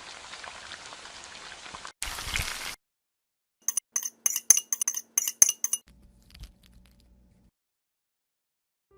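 Light clinks of small hard objects, about a dozen in quick succession, each with a brief high ring, after a stretch of faint hiss.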